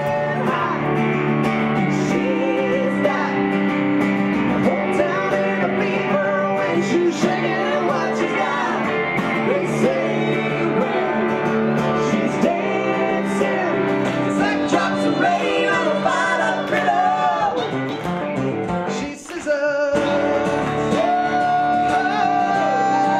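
A man singing a lively song backed by strummed acoustic guitar, with a brief drop-out about nineteen seconds in.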